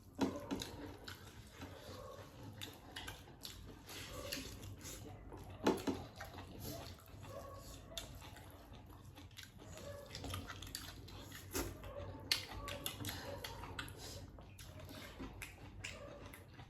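Close-up eating sounds: wet chewing and mouth smacks with many irregular small clicks, and a few sharper knocks about six and twelve seconds in.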